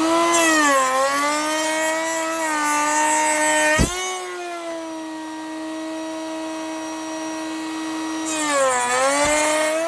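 Router with a finger-joint bit running at high speed with a steady whine; twice the pitch sags and cutting noise rises as the bit is pushed through the wood, with a steadier free-running stretch between.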